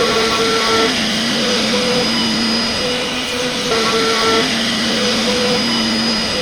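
CNC router carving solid mango wood: a steady spindle-and-cutting noise with motor whines that jump between a few pitches every half second to a second as the machine moves.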